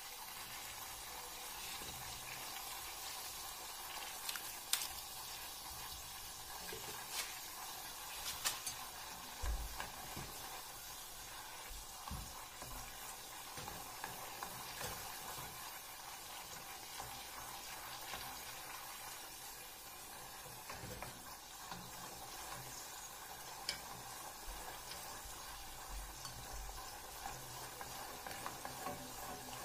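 Khvorost dough rosette deep-frying in hot oil in a small steel saucepan: a steady sizzle, with a few short clicks in the first third.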